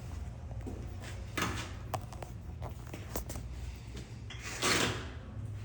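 Scattered knocks and clicks, with a brief louder scraping slide about four and a half seconds in, over a steady low hum.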